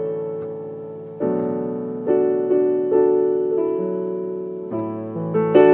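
Slow, soft background piano music: sustained chords struck every half second to a second and left to fade.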